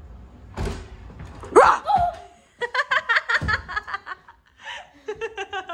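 A knock, then a sudden shout sweeping sharply up in pitch at a jump scare, followed by bursts of rapid laughter.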